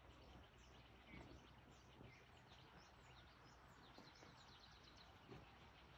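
Near silence with faint bird chirps: many short, high calls scattered throughout over a low, steady background hum.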